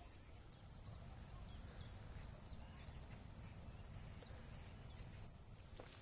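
Faint birdsong: scattered short, high chirps a few times a second apart, over a low steady rumble.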